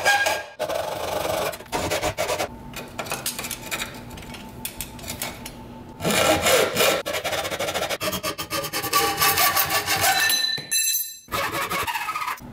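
Hand hacksaw cutting through thick aluminium plate, about 3/16 inch, in repeated back-and-forth strokes. The strokes are softer for a few seconds in the middle and break off briefly near the end.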